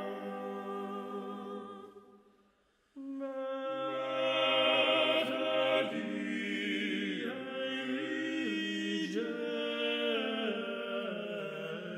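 Background choral music: unaccompanied voices singing long held notes that shift from chord to chord. It dies away about two seconds in and begins again a second later.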